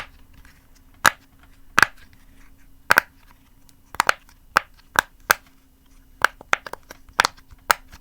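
Silicone butterfly pop-it fidget toy having its bubbles pressed one after another: an irregular series of sharp pops, about two a second.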